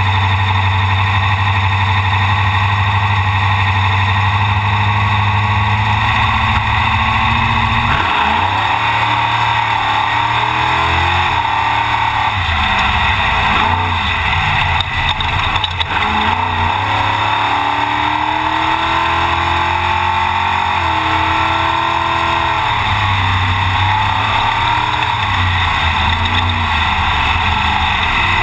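Off-road race truck's engine heard from inside the cab. It runs steadily for about eight seconds, then revs up and down repeatedly as the truck accelerates away through the gears.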